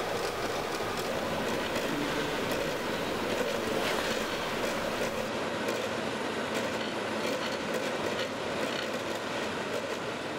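Steady mechanical noise of a rail-mounted stone-cutting saw running as it cuts stone, with a few faint clicks.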